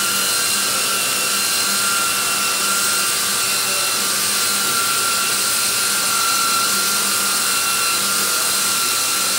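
Biesse Rover 20 CNC router running: a loud, steady high hiss with a spindle whine that swells and fades slightly as the head travels over the panel.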